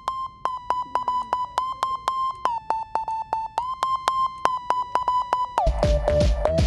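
Electronic ringtone track playing back: a bare synth beep near 1 kHz, chopped into rapid pulses about five a second and stepping slightly up and down in pitch. Near the end the drum beat comes back in and the beeping tone drops lower.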